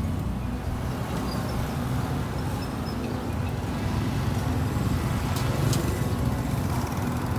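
Steady low rumble of street traffic, motorbike and car engines, with a few sharp clicks about five and a half seconds in.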